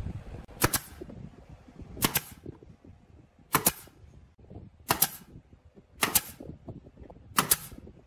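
Pneumatic brad nailer firing six times, about one shot every second and a half, driving brads into the wooden panels of a birdhouse. Each shot is a sharp snap with a brief tail.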